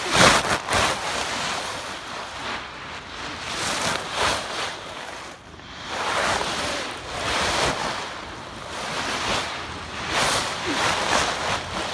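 Dry leaves rustling and crunching close against a phone's microphone, coming in swells every second or two, with a sharp knock at the very start.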